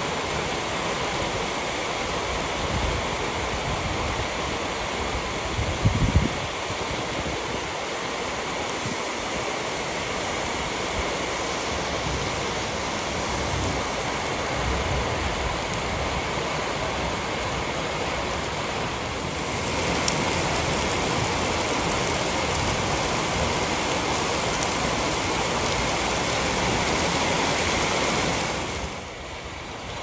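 Steady rain pouring down in a heavy shower, an even hiss with some low rumble from gusts. A brief low thump comes about six seconds in; the downpour grows louder about two thirds of the way through and eases just before the end.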